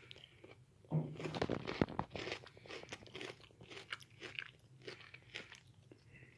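Chewing a mouthful of a chocolate-coated strawberry wafer bar with crunchy waffle-cone pieces. The crunching is strongest about a second in, then goes on as steady chewing crunches that slowly grow fainter.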